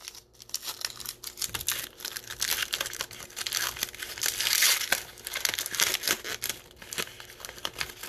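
Crinkly plastic card wrapping rustling and crackling with many small clicks as trading cards are handled, busiest in the middle.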